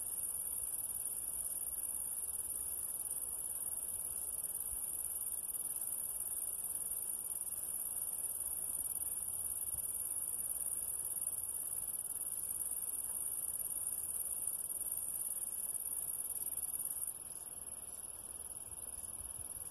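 Steady high-pitched chirring of insects in the grass, which eases off a little about 17 seconds in.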